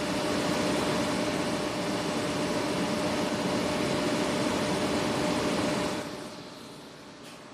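Cooling fan of a powered-up Sankyo SC3200 robot controller running, heard up close at its vent grille: steady rushing air with a faint steady hum. It falls off in level about six seconds in.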